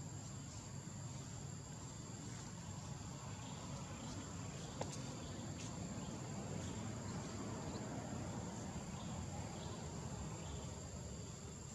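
Steady high-pitched drone of forest insects over a low background rumble, with a couple of faint clicks near the middle.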